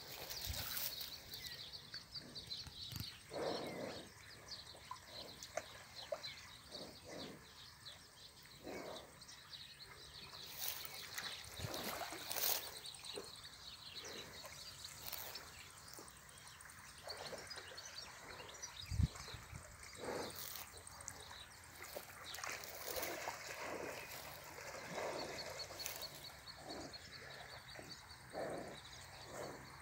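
Summer countryside ambience: birds chirping over a steady high hiss, with scattered short rustles and footsteps in dry grass and a single low bump about two-thirds of the way through.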